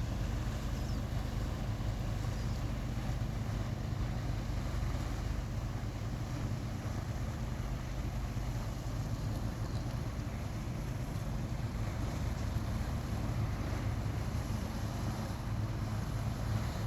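Fishing boat engine running steadily, a low even drone.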